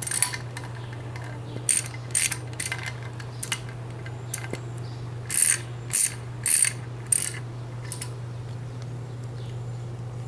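Hand ratchet wrench clicking in a series of short strokes, about eight bursts, as bolts are run in to fasten a timing locking tool onto a BMW N20 engine, over a steady low hum.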